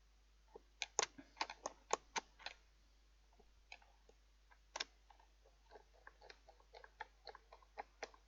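Small sharp clicks and taps of a screwdriver and the fan heater's plastic casing as screws are worked back in. A handful of louder clicks come in the first couple of seconds, then quicker, fainter clicking at about three or four a second near the end.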